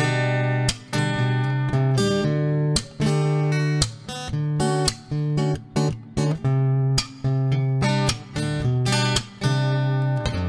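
Instrumental background music: plucked guitar notes in a steady rhythm over a low bass line.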